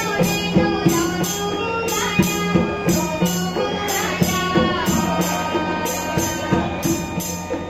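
Music with a steady percussion beat over a held low note.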